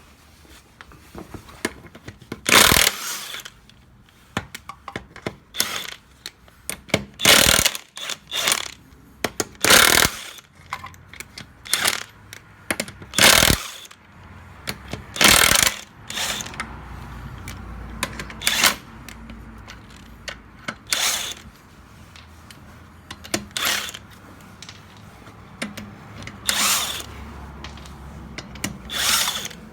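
Hand and jack tools working to take a car's wheel off: a run of short, sharp mechanical ratcheting and clanking bursts every two to three seconds, with lighter clatter between.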